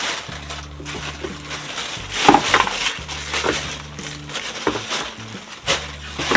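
Rustling and knocking of small objects being handled and set down on a table, with several sharp clicks, loudest about two seconds in. Quiet background music with steady low notes runs underneath.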